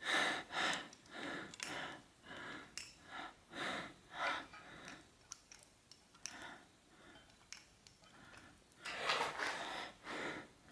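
A finger rubbing grease around the rubber seal inside an RST Gila T5 suspension fork's lower leg: short, soft rubbing strokes, about one or two a second, then a pause and a few more strokes near the end.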